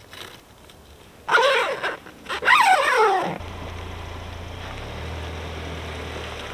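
A dog gives two loud whining calls about a second apart, the second sliding down in pitch. Then a steady low hum of the Ford Ranger pickup's engine running as the truck pulls away.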